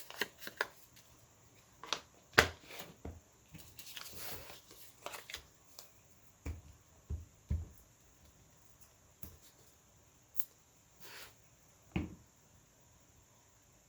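Paper handling on a craft table: sheets of paper rustling and being set down, with scattered light taps. The sharpest tap comes a little over two seconds in.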